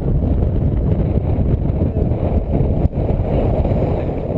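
Strong wind buffeting the microphone: a loud, gusty rumble.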